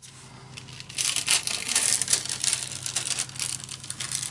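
Paper crackling and rustling on a gel printing plate tacky with wet paint, as a pull is rubbed down and peeled off. It is a dense run of crackles, loudest from about a second in.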